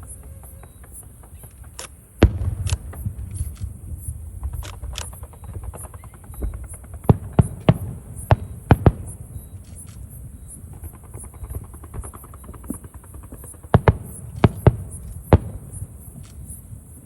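Aerial fireworks bursting: a sharp bang about two seconds in, a quick cluster of bangs in the middle and another cluster near the end, with crackling and a low rumble between them. A steady high insect chirring runs underneath.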